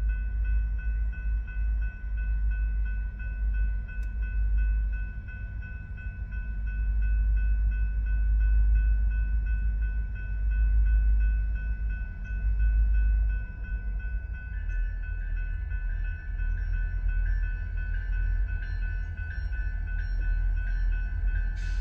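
Union Pacific diesel-electric locomotive running, a heavy low rumble under a steady high whine. About two-thirds of the way through the tone shifts and new whining tones join in, and a short burst of hiss comes right at the end.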